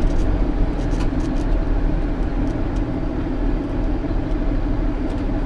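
JCB Fastrac 8250 tractor's diesel engine running steadily, with a few light rattles in the first second or so.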